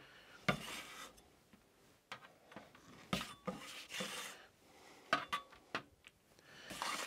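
Metal spatula scraping across paper as flattened boiled potatoes are slid off and set onto a metal baking tray: a handful of short scrapes, with a few light clicks of the spatula about five seconds in.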